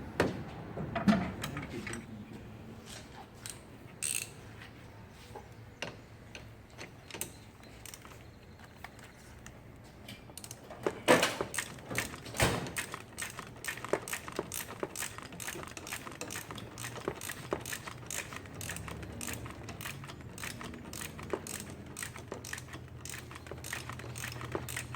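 Hand tools working on a motorcycle fork tube during reassembly: scattered metal clicks and clinks, two louder knocks a little before halfway, then a long run of even ratchet clicks as a fastener is turned.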